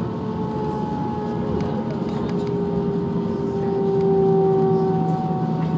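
Cabin noise of an Airbus A321 rolling out after landing: a steady rumble with the engines' whine slowly falling in pitch as they spool down.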